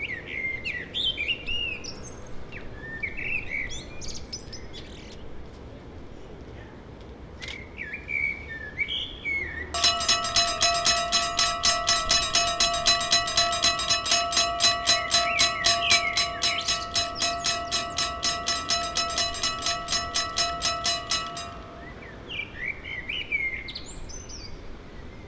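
Birds chirping, then about ten seconds in a mechanical railroad crossing bell of the American type starts ringing suddenly, its clapper striking about four times a second. It rings for around twelve seconds and then stops, leaving the birds chirping again.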